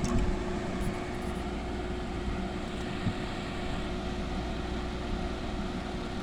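GE 5,050 BTU window air conditioner (model AET05LVQ1) running steadily, its fan blowing on high with a constant hum.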